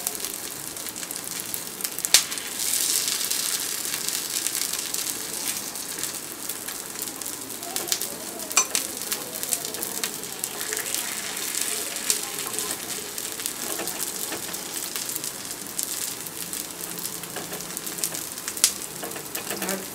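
Oil sizzling steadily as sweet rice-and-jaggery paniyaram batter fries in the wells of a paniyaram pan. A few sharp clicks come as a metal skewer turns the dumplings in the pan.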